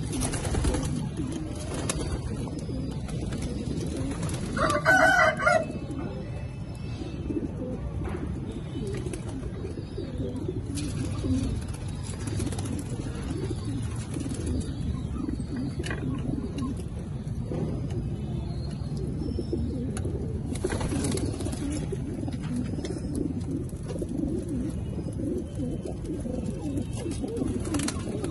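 A loft full of racing pigeons cooing, many birds at once in a continuous low murmur. A short, louder, higher-pitched sound comes about five seconds in.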